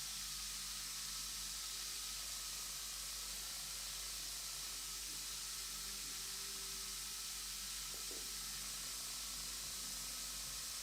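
Large bath bomb fizzing as it dissolves in water, a steady high hiss.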